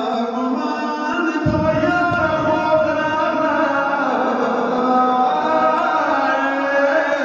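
Male voice chanting a Pashto noha, a Shia lament for Hussain, in long held, slowly wavering notes. A deep low sound joins about a second and a half in.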